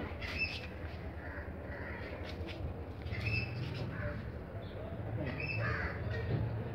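Birds calling, short calls repeating every second or so, over a low steady hum.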